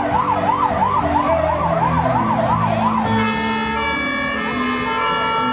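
Music with a fast, regular siren-like warble over low held chords for about three seconds, then changing to a melody of held notes.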